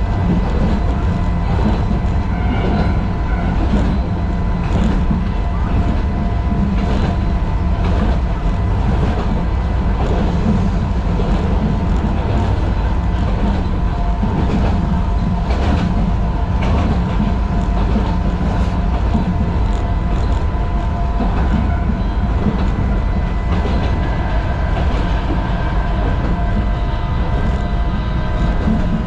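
Sangi Railway Hokusei Line narrow-gauge (762 mm) electric train running at speed, heard from inside the driver's cab. A steady low rumble, with the wheels clicking over rail joints at uneven intervals and a steady high hum.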